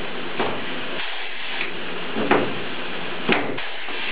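Steady hiss with four light knocks spread across it, the last one the sharpest.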